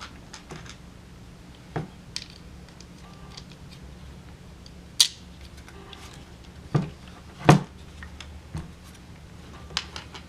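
Scattered clicks and clinks of small metal parts being handled: the screws, nuts and Allen key of a clamp-on flashlight mount being worked onto an AR-15 front sight post. There are a few sharper knocks about five, seven and seven and a half seconds in.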